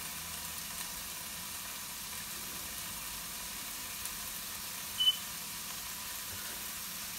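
Tofu frying in a pan with a steady, soft sizzle, and one short high beep about five seconds in.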